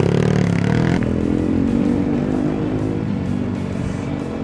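TVS Apache RR310's single-cylinder engine running under way at low speed, its pitch climbing briefly at the start, then holding fairly steady.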